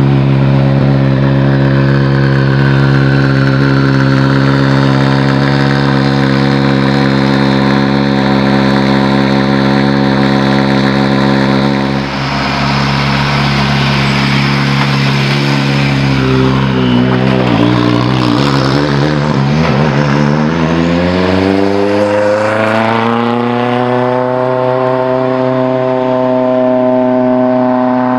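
Rally car engine running at a steady speed. About halfway through, the note sags and wavers, then rises smoothly to a higher, steady engine speed.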